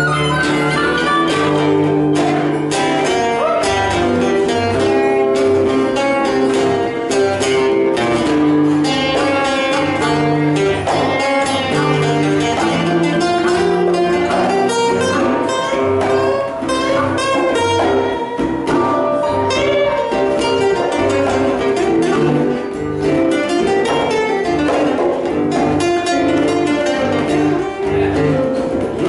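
Blues harmonica playing held, bending notes over two acoustic guitars in a live blues jam.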